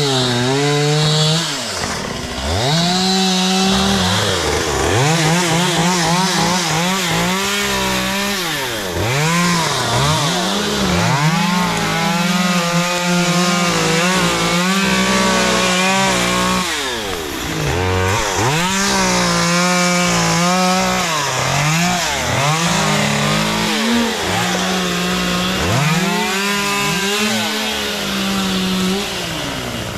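Chainsaw cutting wood. The engine's pitch dips and climbs back again and again as the throttle is eased and opened between cuts.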